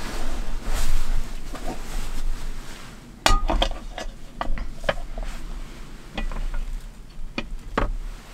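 Hinged metal hot sandwich maker being handled and opened out on a wooden table: a series of sharp clicks and clanks from its pans and handles, the loudest about three seconds in.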